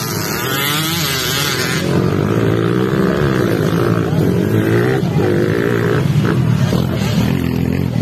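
Racing dirt bike engines revving, their pitch rising and falling over and over as the throttles open and close.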